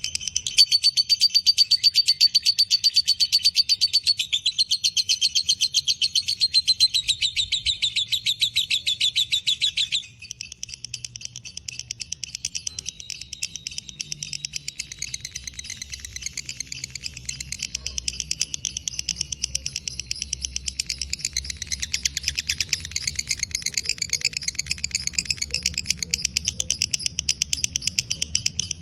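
Lovebird in 'ngekek': a long, unbroken, very fast high-pitched chattering trill of many notes a second. It drops suddenly in loudness about a third of the way through and carries on without a break.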